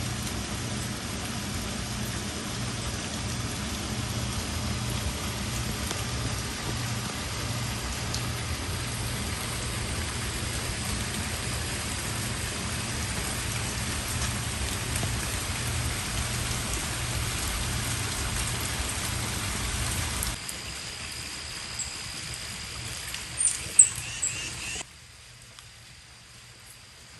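Steady rain falling, an even hiss with a low pulsing hum beneath it. About twenty seconds in it drops to a softer rain ambience with a few short, sharp bird chirps, then goes quieter still.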